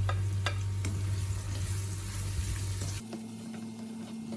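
Chopped onions and green chillies sizzling as they fry in hot olive oil in a pan, with a couple of short clicks near the start. About three seconds in the sizzling turns quieter.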